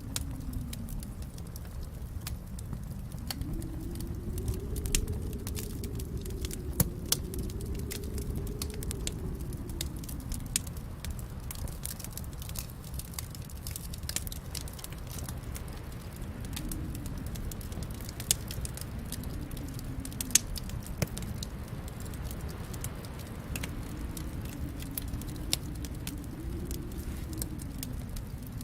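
Wood fire burning in a fireplace: irregular crackling with scattered sharp pops, a few much louder, over a low steady rumble that swells and fades every few seconds.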